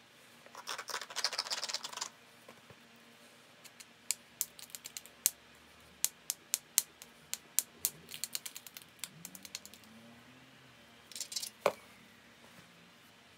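Flintknapping a small flint biface: the edge is rasped with the knapping tool in a dense scratchy burst, then a run of sharp, separate clicks and ticks as small flakes are worked off, and another short rasp near the end followed by one crisp click.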